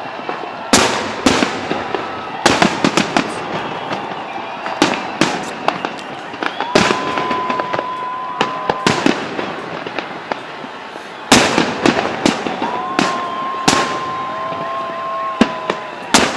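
Fireworks salute: aerial shells bursting in a rapid, irregular series of sharp bangs, the loudest about eleven seconds in. Twice a steady whistle is heard, each lasting two to three seconds.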